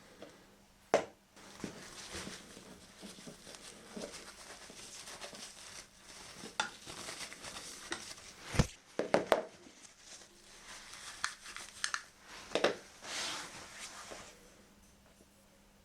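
Rustling and scattered knocks and clicks of rifle-cleaning gear being handled. The loudest moment is a quick cluster of knocks a little past halfway, and it goes quieter near the end.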